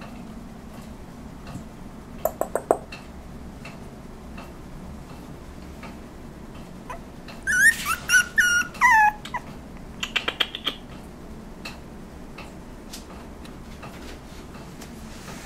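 Young puppy, about six weeks old, whimpering: a few short squeaks about two seconds in, then about halfway through a run of high whines that slide down in pitch, followed by a few short yelps.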